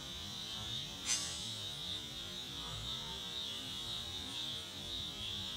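Steady high-pitched buzz, with one sharp click about a second in.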